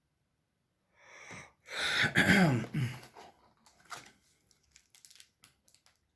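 A person's short in-breath, then a loud breathy vocal exhale whose pitch falls over about a second, followed by faint light ticks from handling trading cards.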